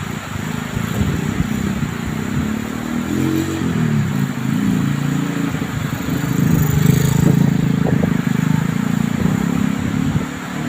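A small engine running, its pitch rising and falling about three to four seconds in, then holding steady.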